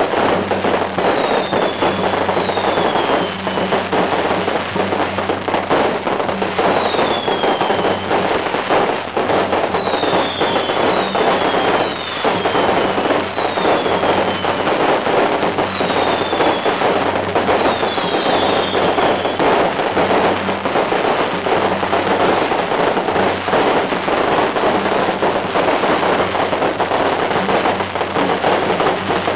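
Firecrackers going off in a dense, continuous crackle, as at a temple procession. Short high whistles falling in pitch come about once a second through the first two-thirds.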